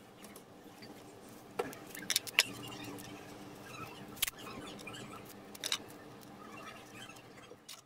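Masking tape being handled: a few sharp snaps and crackles as strips are torn off and pressed onto a skateboard deck's grip tape, over a faint steady hum.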